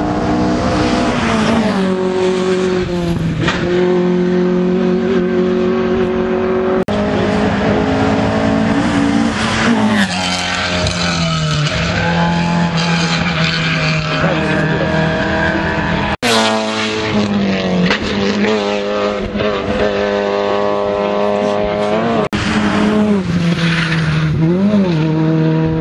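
Rally cars at full throttle, several in turn: loud engine notes that drop and climb in pitch again and again. The sound breaks off abruptly three times.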